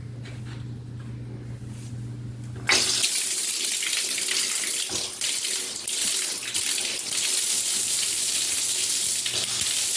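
A steady low hum, then about three seconds in a tap is turned on and water runs hard and steadily, hissing as it splashes, likely over a washing-machine part being rinsed.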